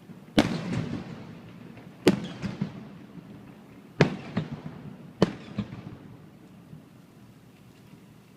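Aerial firework shells bursting, four loud bangs a second or two apart, each trailing off in a rumbling echo with a smaller pop or two after it. The bursts stop about two-thirds of the way in, leaving a fading rumble.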